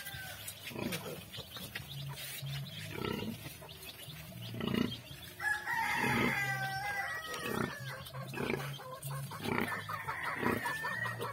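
Nursing sow grunting in a steady rhythm, about one short grunt a second, while her piglets suckle. A rooster crows for about two seconds near the middle, and a fainter fowl call comes near the end.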